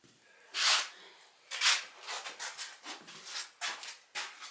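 Short scraping and rubbing noises, a few a second, some louder than others, as the metal lid of a home canning autoclave is worked loose and opened.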